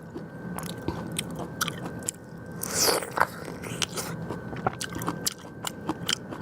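A person eating close to the microphone: short wet clicks of chewing and biting, with a louder breathy, slurp-like burst about three seconds in.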